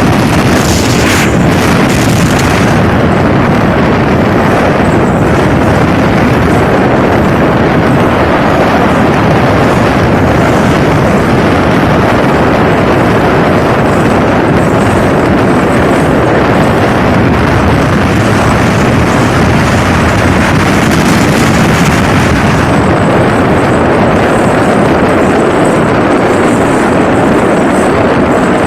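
Motorboat underway: a steady, loud rush of engine and water noise with no let-up.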